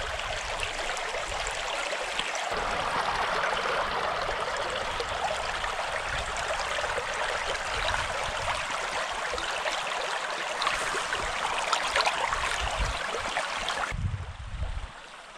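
Shallow trout stream babbling and splashing over rocks close by, a steady rush of water. Near the end it drops to a quieter flow with a low rumble underneath.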